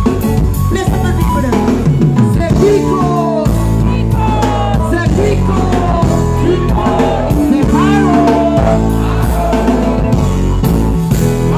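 Live dancehall music over a PA: a heavy bass line and drum beat, with a voice singing or chanting over it in gliding pitches. The bass drops out briefly twice.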